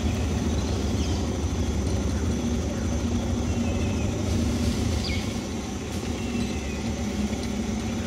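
Small boat's outboard motor running steadily at low revs, with a few faint high chirps over it.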